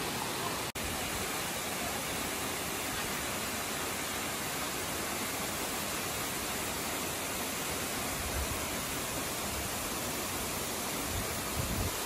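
Steady rushing of a tall waterfall pouring down a rock face into a pool, an even wash of falling water. The sound drops out for an instant about a second in, and a few low thumps come near the end.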